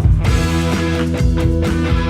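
Background music: held chords over a steady beat.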